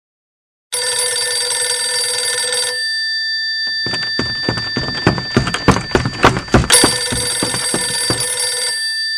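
Telephone bell ringing in two bursts of about two seconds each, with a run of irregular loud knocks or clatter between them.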